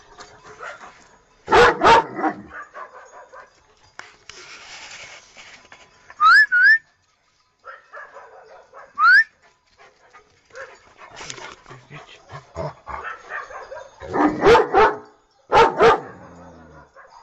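Dogs barking: loud barks about a second and a half in and again near the end, with quieter yapping between. Short high rising squeals come twice in the middle.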